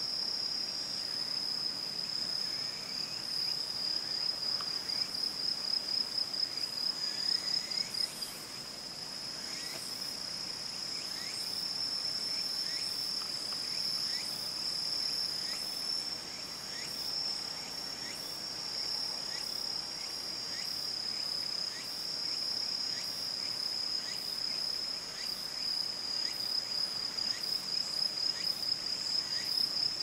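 Insects singing: a steady high-pitched trill that pulses at about three to four beats a second in stretches, with fainter short chirps from other insects.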